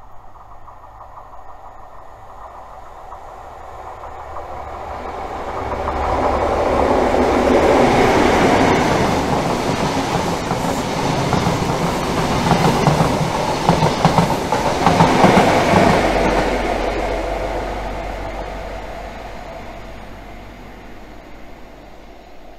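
Network Rail's High Speed Train, a Class 43 diesel power car at each end, passing through at speed. The sound builds, stays loud for about ten seconds with the clickety-clack of wheels over the rail joints, then fades as the train moves away.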